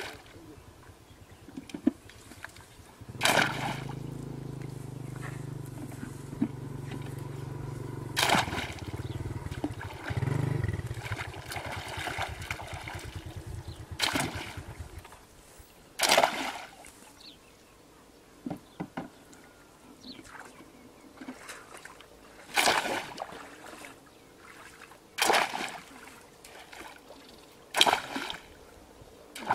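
Sharp splashes, about seven of them a few seconds apart, as an electrofishing pole is swept and slapped through shallow muddy water. A low steady hum runs underneath from about three seconds in until about halfway through.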